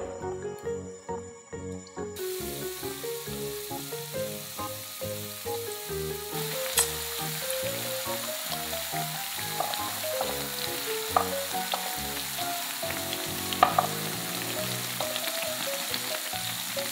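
Potato snacks frying in hot oil: a steady sizzle that starts about two seconds in and grows louder a few seconds later, with a few sharp pops.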